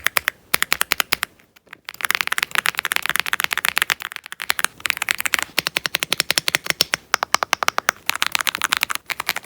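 Typing on an Aula F75 Pro mechanical keyboard with Reaper linear switches: fast runs of crisp keystrokes, each a sharp clack, broken by short pauses about one and a half and four seconds in.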